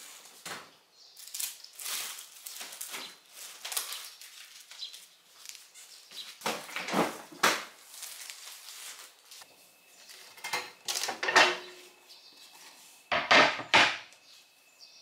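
Kitchen handling sounds: a refrigerator drawer sliding, a plastic bag of vegetables rustling and crinkling, and items knocking on a wooden cutting board. There are louder bursts of rustling about seven seconds in and again near the end.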